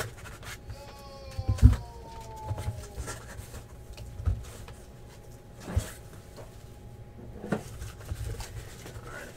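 Cardboard shipping case handled and its top flaps pulled open by hand: scattered knocks and thumps of cardboard, the loudest about a second and a half in. Early on, a brief falling whine-like tone sounds for about two seconds.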